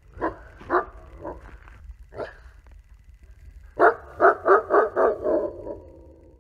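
Wolf barking: a few scattered barks, then a quick run of about five barks a little under four seconds in, trailing into a longer call, over a low steady rumble. This is the bark wolves mainly give as an alarm or warning.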